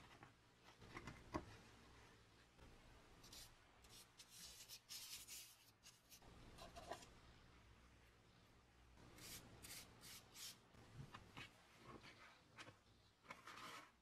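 Faint rubbing and rustling of paper handled by gloved hands, with clusters of short scratchy brush strokes over a small metal lock case.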